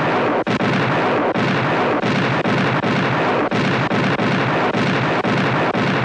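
Muzzle-loading naval cannon of a sailing warship firing a broadside, many shots in quick succession running together into a continuous loud roar of blasts.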